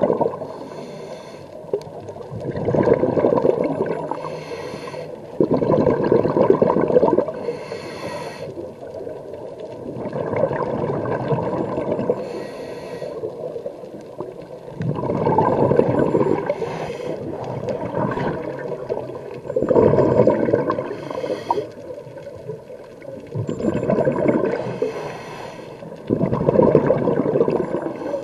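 Scuba diver breathing through a regulator underwater: a hiss on each inhale, then a burst of bubbling exhaust bubbles on each exhale. The breaths repeat roughly every three to four seconds.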